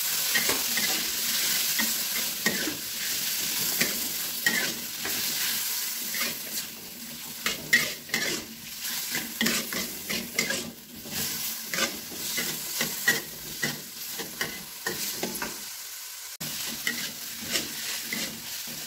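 Sliced green tomatoes sizzling in hot oil in a wok while a metal spatula stirs them, scraping and knocking against the pan. The sizzle is steady at first, then the spatula clacks come thick and fast.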